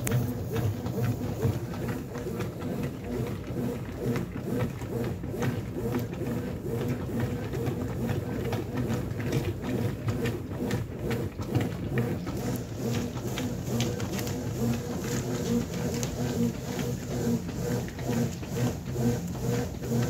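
Brastemp top-load washing machine agitating with turbo agitation at a low water level: a steady motor hum with clothes and soapy water sloshing against the agitator.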